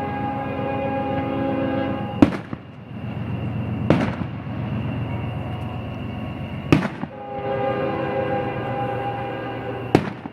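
Fireworks shells bursting: four sharp bangs a few seconds apart. Between them are long held chords, likely background music playing with the display.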